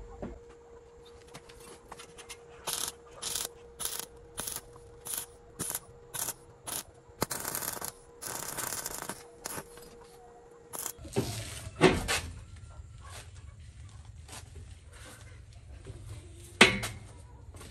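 Arc welding on a galvanized steel frame: a row of short arc hisses, about two a second, as the weld is stitched, then one longer hiss of about two seconds. After that come handling knocks, with a loud sharp knock near the end.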